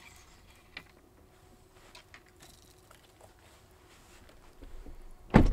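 Mostly quiet, with a few faint clicks, then one loud thump near the end.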